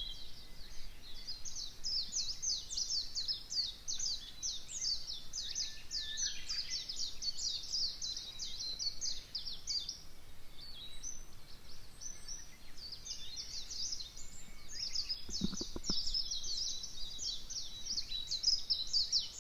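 Wild birds singing and calling, a dense run of quick high chirps that thins out midway and builds again, with one brief lower call about fifteen seconds in.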